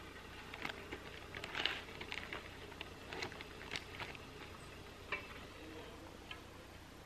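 Scattered light clicks, taps and rustles from cooking gear being handled at a small wood-burning camp stove, the sharpest near the start and a few more toward the middle.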